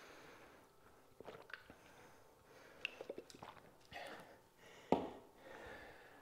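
Faint swallowing and breathing while drinking from a water bottle, with a few small clicks, then a single knock about five seconds in as the bottle is set down on the floor.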